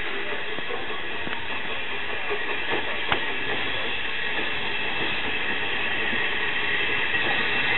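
Steam locomotive working slowly towards the listener with a steady hiss of steam, growing louder near the end. There is a single sharp click about three seconds in.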